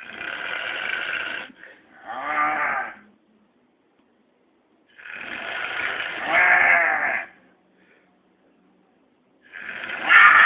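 A man snoring loudly: three long snores about five seconds apart, each a rattling breath that ends in a pitched tone. Heavy snoring after too much alcohol.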